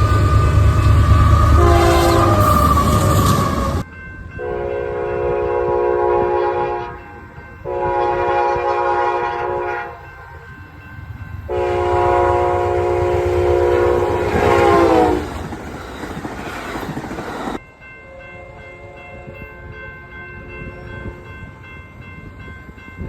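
Locomotive air horns sounding chords of several notes at once, edited from more than one train. First a loud horn over heavy rumble from a close train, cut off abruptly. Then three long blasts of about three seconds each, the last falling in pitch at its end, and after another cut a fainter horn sounding steadily.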